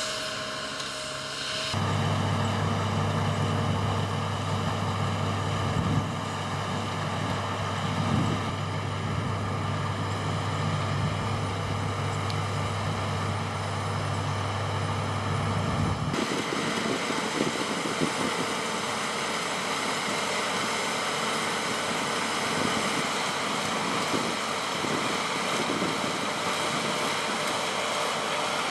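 Heavy farm machinery engines running steadily with a low drone. The sound changes abruptly twice: about two seconds in, and again about sixteen seconds in, when the low drone drops away and a rougher mechanical clatter remains.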